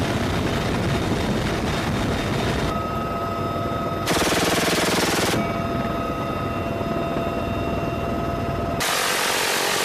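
A helicopter door gun firing bursts of rapid machine-gun fire from inside a UH-1Y Venom's cabin, the clearest bursts about four seconds in and near the end. Between the bursts the helicopter's steady turbine whine can be heard.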